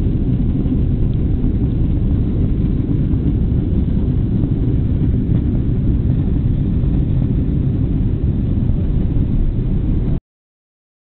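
Steady low rumble inside the cabin of a Boeing 767-300 on its landing rollout, from the engines and the wheels on the runway. It cuts off abruptly about ten seconds in.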